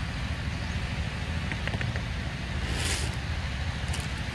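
Steady low rumble of wind buffeting the microphone, with a short rustle about three seconds in.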